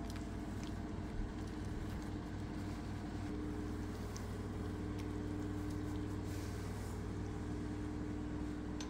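A steady low mechanical hum with a constant drone a little above it, and a few faint light clicks.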